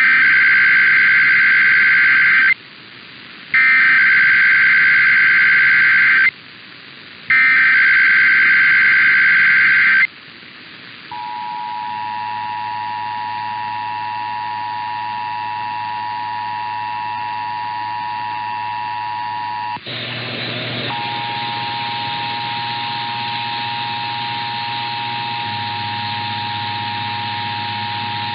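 Emergency Alert System test heard off the air: the SAME digital header, three raspy warbling data bursts of about two and a half seconds each with a second's pause between them, then the EAS two-tone attention signal held steady. The attention tone cuts out for an instant about twenty seconds in, then carries on almost to the end.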